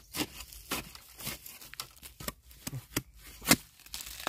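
A digging spade chopping into soil and roots to cut out a bamboo shoot: a run of sharp chops at about two a second, uneven, the loudest about three and a half seconds in.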